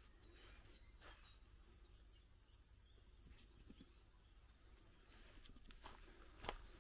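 Near silence of quiet outdoor ambience, with faint bird chirps in the middle and a few soft footsteps on the ground near the end.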